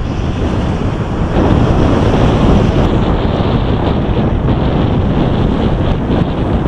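Wind buffeting the microphone of a handheld camera carried at riding speed on a Solowheel: a loud, steady rumble and hiss, swelling a little a second or two in.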